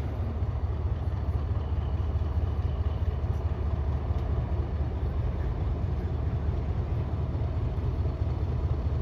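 A diesel train engine idling with a steady low rumble.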